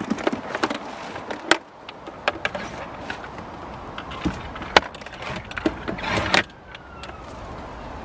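Irregular clicks and knocks of hard plastic and metal as a Henry vacuum cleaner, its hose and its tubes are handled and stowed, with a short rustling clatter about six seconds in. The vacuum's motor is not running.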